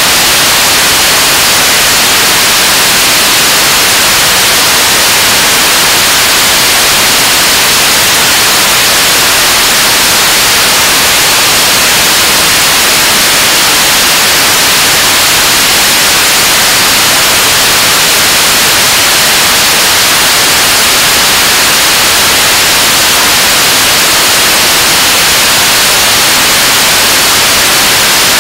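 Korean launch vehicle's 7-tonne-class liquid-propellant rocket engine (unit 2) firing at steady thrust partway through a 580-second hot-fire test: a loud, even rushing noise, heaviest in the upper range, with no change in level or pitch.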